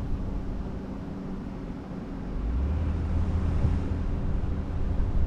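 Car driving slowly, its engine and tyres making a steady low rumble, with wind buffeting the roof-mounted camera's microphone. The low rumble grows louder about halfway through.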